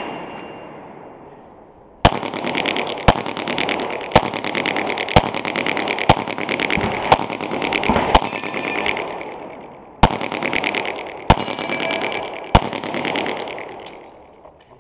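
Pistol shots: about ten single shots starting about two seconds in, mostly about a second apart with a couple of longer pauses, over a steady rushing noise.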